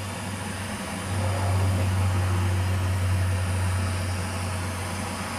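Handheld gas torch flame running steadily as it heats an aluminium engine case. It gets louder about a second in and eases off near the end.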